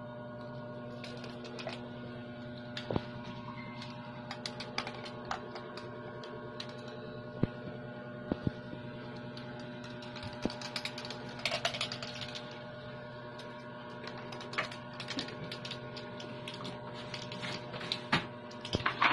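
Scattered light clicks and taps over a steady hum, the clicks bunching into quick flurries in places.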